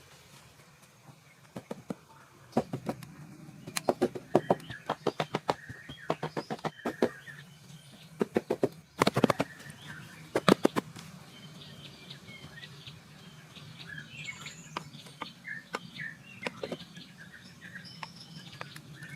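Quick runs of sharp knocks, several a second, through the first half, like something being struck or chopped. Then small birds chirping near the end.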